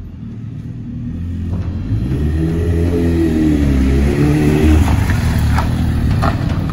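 Sport motorcycle engine growing louder as the bike pulls away and rides past, revving up twice.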